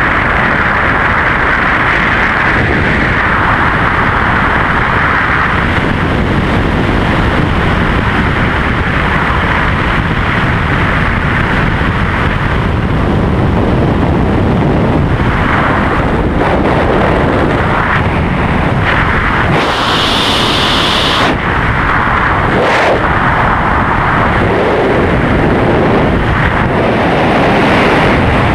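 Loud, steady rush of wingsuit-flight airflow buffeting the camera's microphone, with a brief brighter hiss about twenty seconds in.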